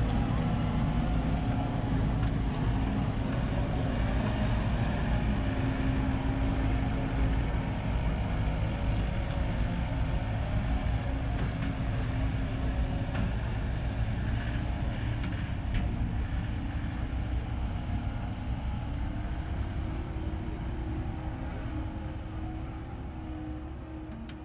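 Diesel engine of a John Deere compact machine running steadily under operation, a constant low drone whose pitch rises a little about two-thirds of the way through.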